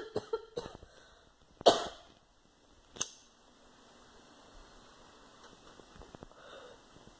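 A short loud breathy noise about one and a half seconds in, then a lighter clicks and a faint steady hiss follows as a glass bowl piece is lit and smoked from.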